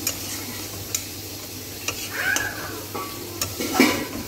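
Masala sizzling in a steel kadhai while a metal spatula stirs and scrapes it, with several sharp clicks of the spatula against the pan, the loudest near the end. A brief squeaky tone sounds about two seconds in.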